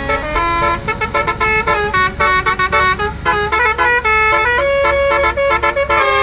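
A heavy truck's musical horn playing a quick tune of short notes that change pitch several times a second, over the low rumble of the truck's engine.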